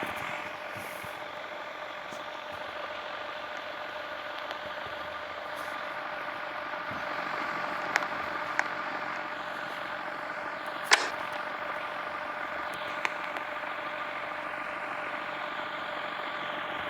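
Ceiling fan running on low speed with blades removed: a steady motor hum with a faint whine, and a few sharp clicks.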